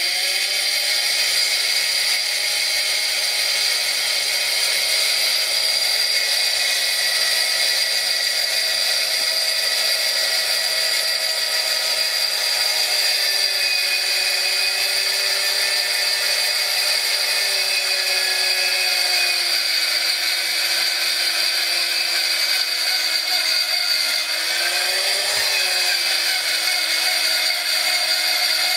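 Vintage half-inch electric drill running without a break while a long twist bit bores into a block of wood held in a vise. Its steady motor whine drops slightly in pitch about halfway through as the bit takes the load, with a brief rise and fall near the end.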